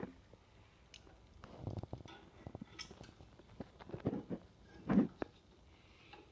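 Hard objects being handled: irregular clicks, knocks and light clinks, with a sharp click at the start and a heavier knock about five seconds in.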